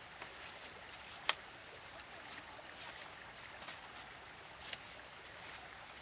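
Thin bamboo strips clicking and tapping against each other as they are laid and woven into a lattice by hand: one sharp click about a second in, a softer one near the end.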